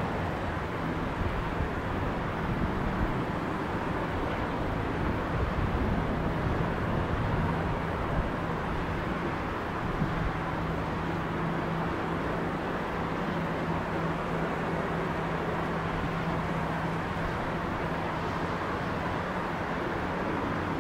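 Steady rumble and hiss of distant jet engines from an Airbus A350-900 with Rolls-Royce Trent XWB engines on final approach, with a steady low hum underneath.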